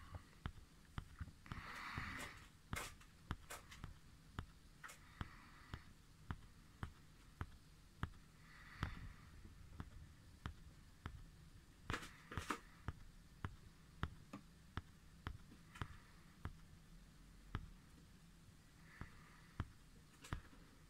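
Faint handling noise from a large anodised-aluminium telescope eyepiece turned in the hand. There are scattered small clicks and taps, about one or two a second, with a few soft rustles between them.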